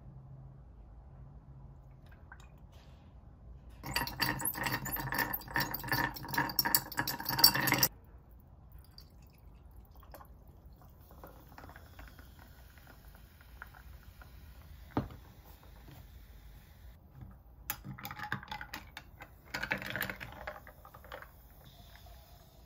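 Ice cubes clinking and crackling in a tall glass as liquid is poured over them, in spells: a loud one lasting about four seconds a few seconds in, then faint pouring, a single sharp click midway, and another burst of clinks near the end. Sparkling water is poured from a plastic bottle into the iced glass for the highball.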